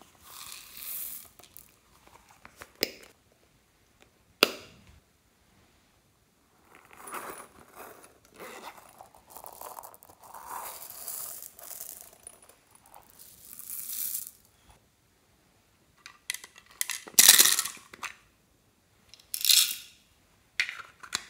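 Small beads and sequins being poured and shaken out of bags and pouches into a glass bowl, rattling and pattering in bursts, with a few single sharp clicks in the first seconds. The loudest pour comes about two-thirds of the way through.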